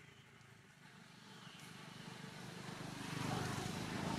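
A motor vehicle's engine approaching, growing steadily louder through the second half and loudest near the end.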